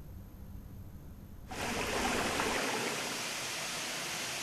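Rushing water of a forest stream and waterfall: a low rumble at first, then about a second and a half in, a sudden switch to a loud, steady rush of falling water.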